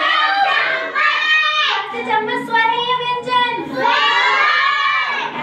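A child's high voice singing, holding long notes that slide up and down in pitch.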